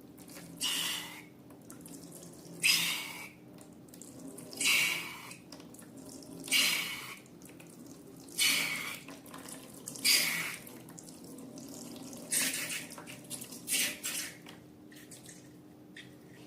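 Eight short wet, splashy bursts of liquid, about one every two seconds, from balloon contents being squeezed or poured out, over a steady low hum.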